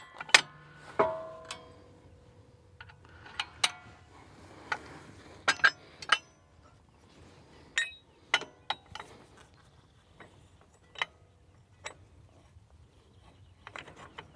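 Steel three-point hitch lower lift arms clanking and clinking against the hitch as the old arm is taken off and a new Category 2 arm is fitted. The knocks are irregular and come every second or so; one about a second in rings on briefly like struck metal.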